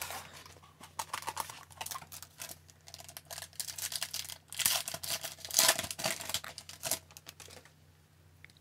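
A 2019-20 Upper Deck Series 2 hockey card pack's foil wrapper being torn open and crinkled by hand, a run of sharp crackles that is loudest about five to six seconds in. It goes quiet about a second before the end.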